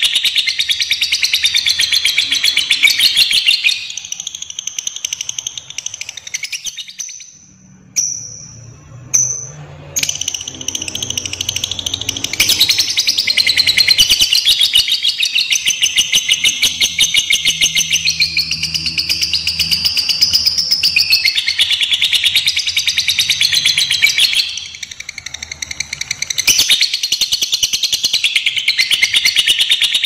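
Lovebird singing a long, fast, continuous high-pitched chattering trill (ngekek), breaking off briefly twice: about seven to ten seconds in, and again about twenty-five seconds in.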